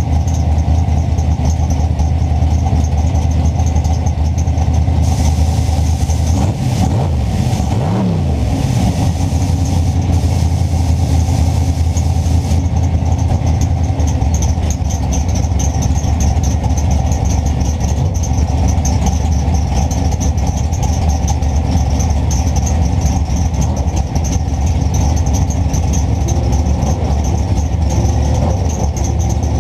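A car engine running steadily with a deep rumble, with a brief rise and fall in pitch about seven seconds in.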